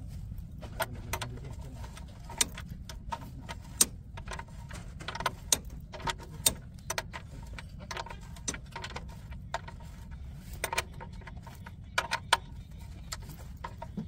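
Socket wrench clicking and clinking on the engine sump drain plug of a JCB 3DX backhoe loader as the plug is screwed back in: irregular sharp metallic clicks, several a second at times, over a steady low rumble.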